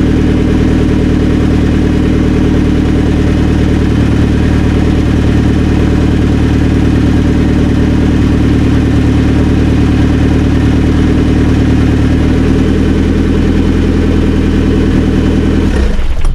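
Ford 2.3-litre turbocharged four-cylinder SVO engine running steadily at idle, with its mass air flow meter now fitted the right way round. The sound cuts off near the end.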